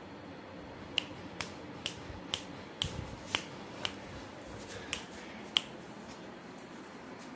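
A run of about ten short, sharp clicks, roughly two a second, starting about a second in and stopping a little past halfway.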